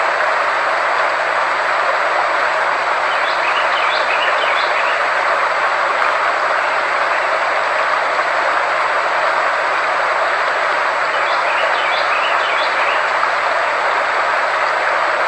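Frequency-therapy sound track: a steady, loud rushing noise in the mid range with faint steady tones held above and below it. Twice, about eight seconds apart, a brief cluster of faint high chirps sounds over the noise.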